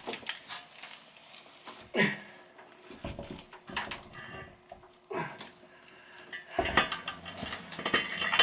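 Scattered knocks and clatter of a heavy one-piece porcelain toilet being handled and set down on a tiled floor, busier near the end.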